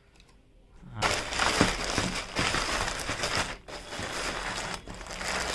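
A compostable brown paper mailer and a clear plastic bag crinkling and crackling as a plastic-wrapped cap is pulled out of them by hand, starting about a second in.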